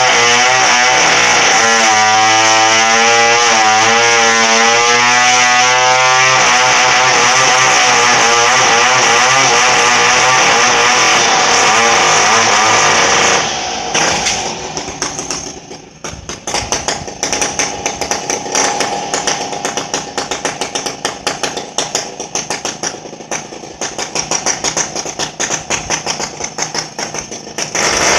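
Two-stroke chainsaw engine running at high revs, its pitch wavering. About halfway through the throttle is let off and it drops to a rough, pulsing idle, then is revved up again near the end.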